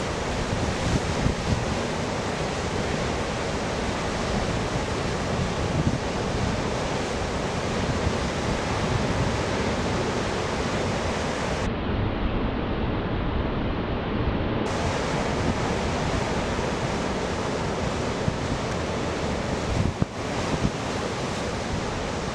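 Steady wash of breaking ocean surf, with wind noise on the microphone.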